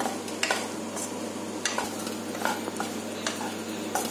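Spatula scraping and tapping against a nonstick kadai while stirring sliced mushrooms and onions, about six irregular strokes, over a faint sizzle.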